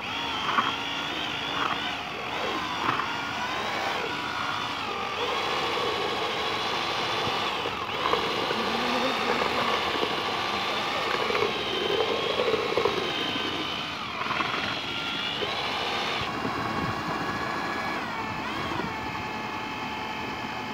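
Handheld electric drill with a paddle mixer stirring micro concrete in a bucket. The motor whines steadily, its pitch dipping and recovering a few times as the load from the mix changes.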